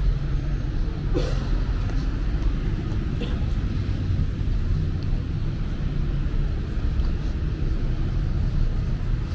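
Steady low rumble of background ambience, with a couple of brief sharp sounds about a second and about three seconds in.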